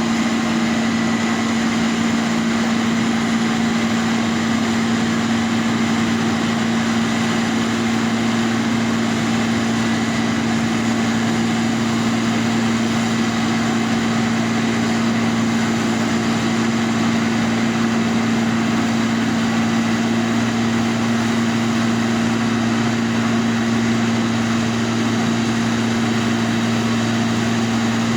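A large engine running steadily at one constant speed, with an even hum and hiss that never changes.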